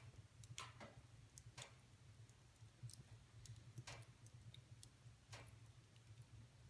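Wood fire burning in a fireplace: faint, irregular crackles and pops, about eight in a few seconds, over a steady low hum.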